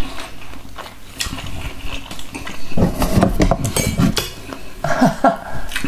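Metal forks clinking and scraping against a glass salad bowl and plates: scattered sharp clinks, thickest a few seconds in.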